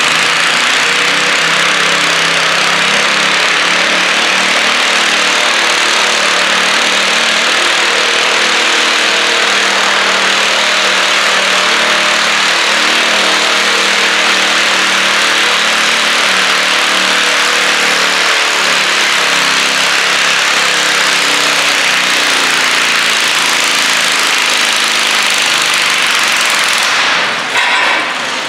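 Stock garden tractor engine running hard under load while pulling a stoneboat sled, loud and steady, its pitch wavering a little. It dies away shortly before the end.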